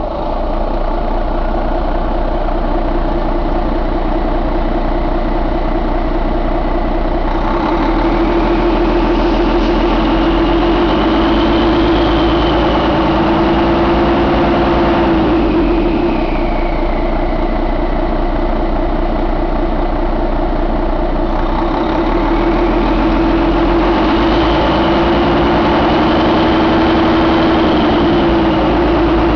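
Volvo D13 inline-six diesel engine idling just after start-up, a steady loud diesel clatter and hum. Its pitch rises gently and eases back down twice.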